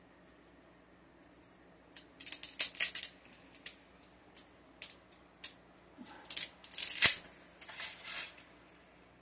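A bundle of dry spaghetti being snapped by hand into pieces: a series of crisp cracks and clicks in several clusters, the sharpest crack about seven seconds in, followed by a short rustling rattle of loose strands.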